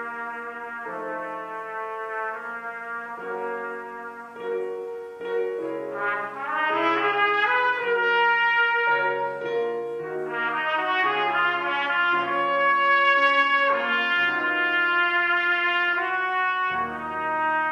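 Trumpet playing a classical solo melody over grand piano accompaniment. It gets louder and climbs higher from about six seconds in. Deep piano bass notes come in near the end.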